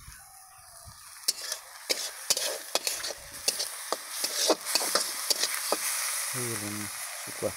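Small dried fish (sukhua) frying in oil in a steel kadai. The sizzle builds from about a second in, and a metal spatula clinks and scrapes against the pan as it stirs.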